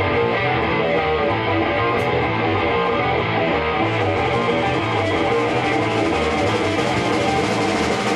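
Rock band playing loud and steady in a small rehearsal room: strummed electric guitars over a repeating low riff.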